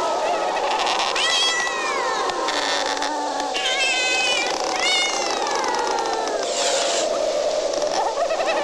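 A cat meowing, three drawn-out calls, over a steady wavering drone. Two of the meows rise and then fall in pitch.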